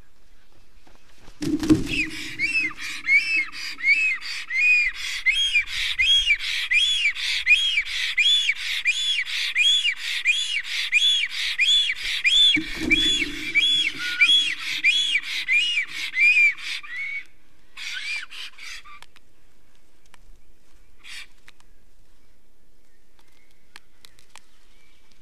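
Black storks landing on a stick nest with a thump, one about a second and a half in and another about halfway through. Between them, a long run of wheezy, rising-and-falling whistling calls, about three a second, from the greeting display at the nest. The calls stop about seventeen seconds in, with a few more after.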